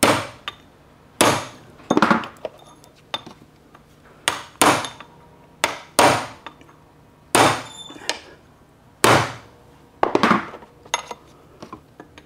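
Ball-peen hammer striking a steel pin punch about sixteen times at uneven intervals, often in close pairs, each blow with a short metallic ring, driving a roll pin through a T5 transmission's fifth-speed shift fork into its rail.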